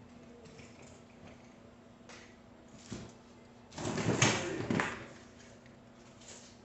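Huffy children's bike being handled and set down on a workbench: a light knock, then about a second of clattering and rattling from the metal frame and plastic parts, about four seconds in.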